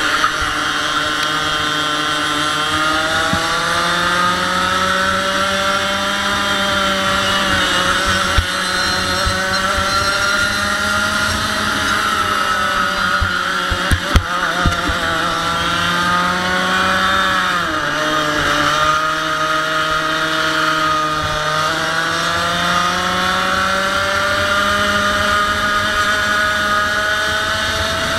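100cc two-stroke kart engine at racing speed, its pitch climbing on the straights and dropping off into the corners, with a sharp drop about two-thirds of the way through and a long climb after it. A few sharp knocks break in around the middle.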